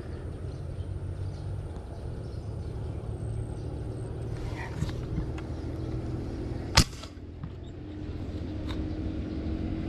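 A single sharp airgun shot about seven seconds in, firing a fishing dart, over a steady low rumble.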